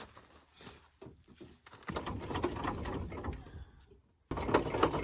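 Metal lifting chain and hook hardware clinking and rattling as the engine is rigged to be lifted, with scattered clicks and then two stretches of dense clattering, the louder one near the end.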